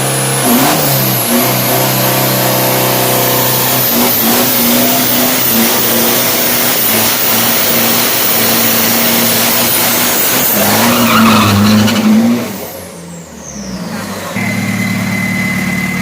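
Manual-clutch drag-racing car launching and accelerating hard, its engine revving up and stepping back through several gear changes for about twelve seconds. It then lifts off suddenly, a high whistle falls away, and an engine idles near the end.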